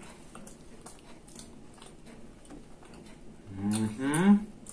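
Soft chewing and small mouth clicks from eating doughnuts, then near the end two closed-mouth "mmm" hums of enjoyment, the second rising in pitch.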